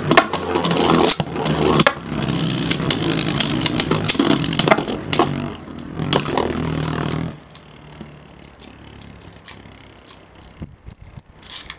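Two plastic Beyblade spinning tops, one right-spin and one left-spin, whirring and grinding on a clear plastic stadium floor, with sharp clacks as they strike each other. About seven seconds in the sound drops off sharply, and one top is left spinning much more quietly.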